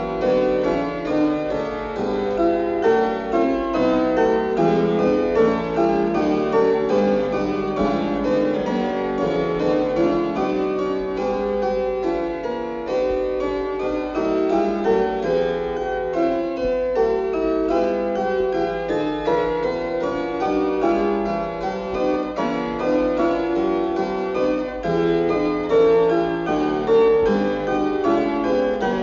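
Solo keyboard music: a brisk piece of fast, densely running notes played without a break.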